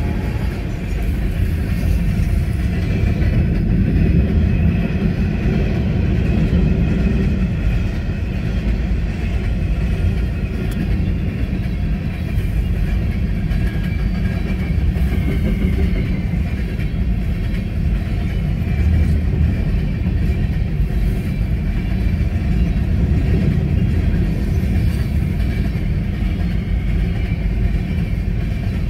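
Freight train of covered hopper cars rolling past at a grade crossing: a steady rumble and clatter of the wheels on the rails. Heard from inside a car with the heater running, which muffles it.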